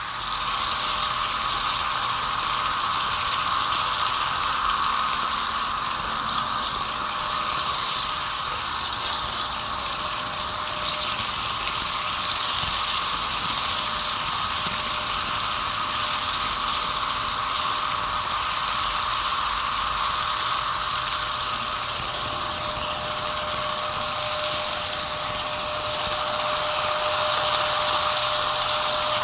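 HO scale model trains running on the layout: a steady mechanical whirr of motors, gears and wheels on the rails. A thin steady whine grows clearer near the end.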